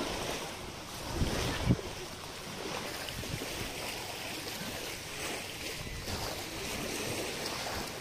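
Wind blowing across the microphone over small waves lapping at a rocky shore, with a stronger gust rumbling about a second in.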